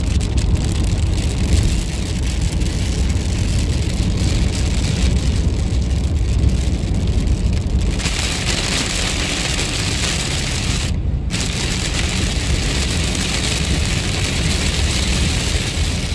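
Heavy rain falling on a car's roof and windshield, heard from inside the cabin, over the steady low rumble of the car driving at highway speed. The rain grows louder about halfway through. It cuts out for a moment about two-thirds of the way in as the car passes under an overpass.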